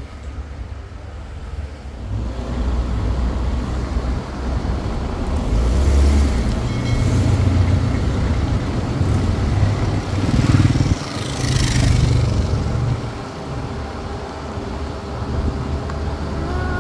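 A car driving slowly along a street: a steady low engine and tyre rumble that grows louder through the middle, with two brief hissing swells about six and eleven seconds in.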